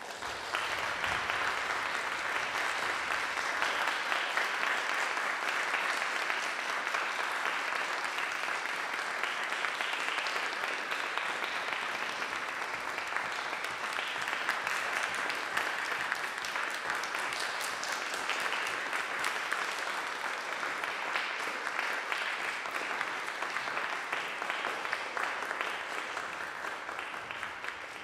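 Audience applauding steadily after a live performance; it starts suddenly and thins out near the end.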